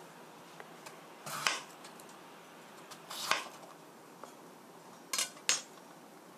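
Chef's knife cutting through a raw peeled potato and knocking onto a cutting board: four cuts, one about a second and a half in, one about three seconds in, and two in quick succession near the end.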